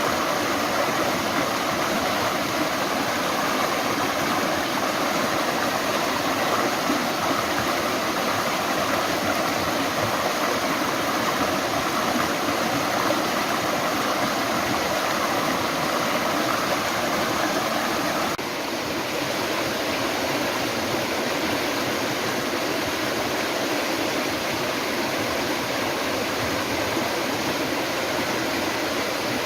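Steady rushing of running water, a stream or small waterfall, that becomes slightly quieter and duller about two-thirds of the way through.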